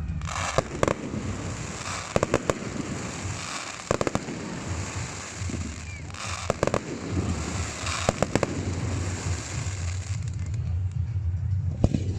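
Fireworks display going off: a series of sharp bangs, several in quick clusters of two or three, with crackling between them over a steady low rumble.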